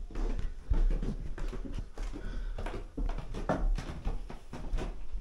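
Footsteps up a wooden staircase, with irregular knocks and rubbing from a handheld camera being carried along.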